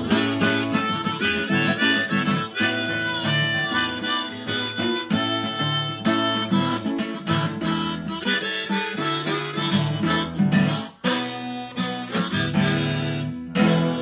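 Harmonica played in a neck rack over a strummed Takamine acoustic guitar, a blues instrumental outro. The music drops out briefly about eleven seconds in, and near the end a final strummed chord is left ringing.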